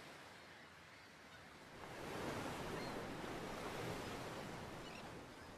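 A soft, surf-like rushing wash of noise that swells about two seconds in and then slowly eases, with a few faint high chirps near the end.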